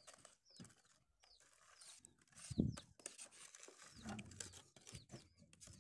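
Faint bird chirps: short, high, falling notes repeated several times. There is a dull thump about two and a half seconds in.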